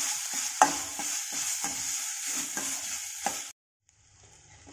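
Grated Indian gooseberry and shallots sizzling in a stainless steel kadai as they are sautéed soft, while a slotted steel spatula scrapes and knocks against the pan several times. The sound cuts off suddenly about three and a half seconds in, then comes back faintly.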